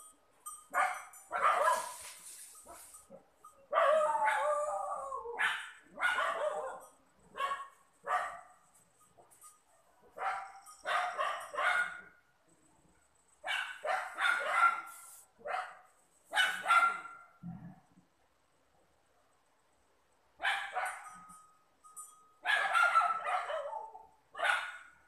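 Dog barking repeatedly in runs of several barks, with a pause of a couple of seconds just past the middle.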